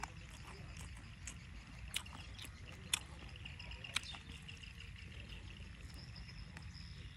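Eating sounds: a few sharp clicks and crunches about a second apart, over steady cricket chirring.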